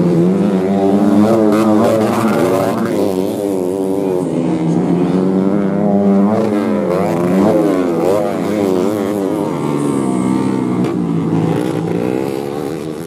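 Several modified underbone racing motorcycles revving hard together, their engine notes rising and falling as the riders work the throttle and shift gears.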